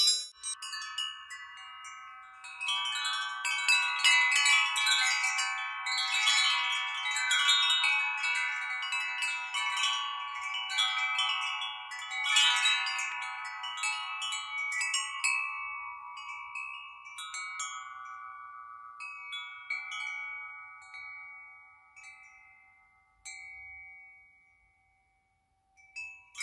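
Homemade wind chime of tubes hanging from a wooden bar, set swinging by hand: the tubes knock together in clicks and many overlapping ringing tones, swelling several times and then dying away to near silence shortly before the end.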